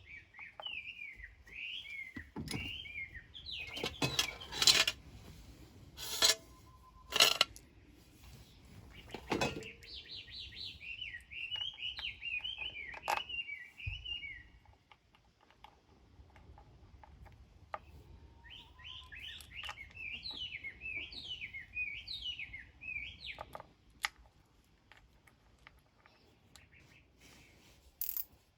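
A small bird chirping in quick runs of notes, three times, each lasting a few seconds. Sharp clicks and knocks come in between, the loudest a few seconds in.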